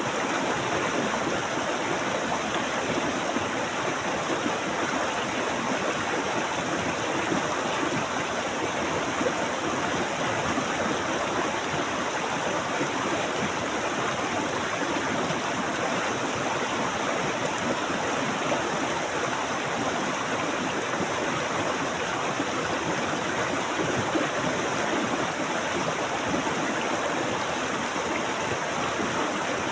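A stream of water flowing and splashing steadily, an even rushing sound without pause.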